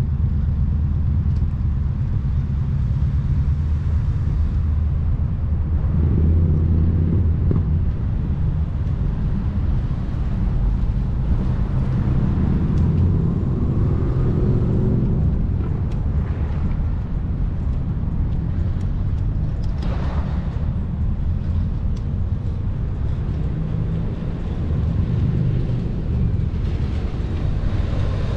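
Urban street ambience: a steady low rumble of road traffic, with a vehicle going by about twelve to fifteen seconds in.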